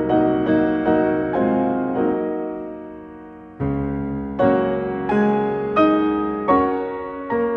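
Solo piano music: slow single notes over low chords, each note struck and then fading. About two seconds in a chord is left to ring out and fade before playing picks up again at about three and a half seconds.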